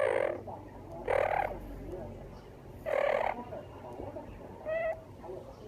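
Amazon parrot imitating a cough: three short raspy cough-like bursts about a second and a half apart, then a short pitched squeak near the end.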